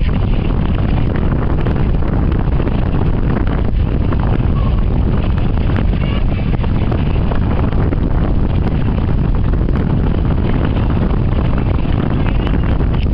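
Wind buffeting the camera microphone: a steady, loud low rumble that keeps up without a break.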